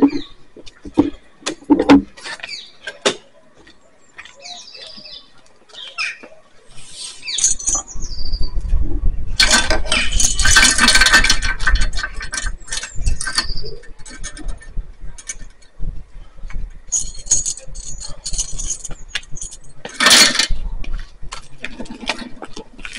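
ATX RS 500 Power Prowler weight sled being pushed across the ground: a loud scraping rumble of the sled for several seconds in the middle, with scattered knocks and clanks before and a short loud scrape near the end. Short high chirps sound between the strokes.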